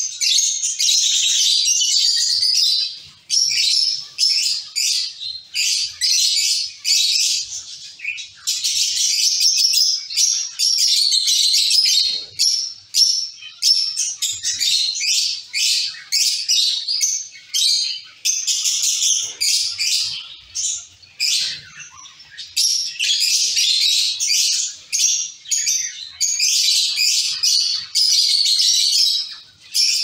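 A colony of zebra finches calling together: a dense, unbroken chatter of many short, high calls overlapping one another.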